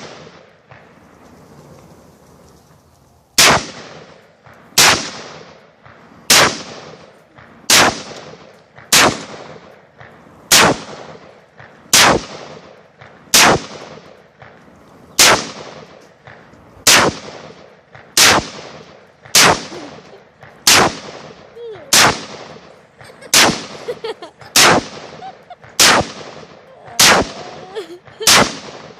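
ATI Omni Hybrid AR-15 rifle fired semi-automatically with Tula steel-cased ammunition: about nineteen single shots, one every second and a half or so, starting a few seconds in and running until the magazine is empty.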